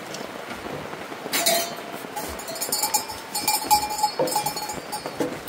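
A herd of goats crowding around feed, one bleating in a long held call, with a run of metallic clinking starting about a second in.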